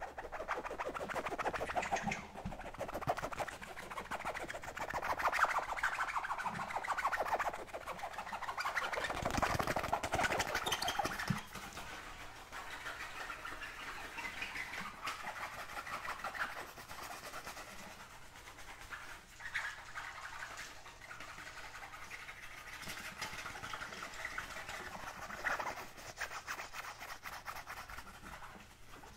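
Fingers scratching the surface of a small zippered pouch: a continuous close-up scratching rustle. It is louder for about the first twelve seconds, then goes on more softly.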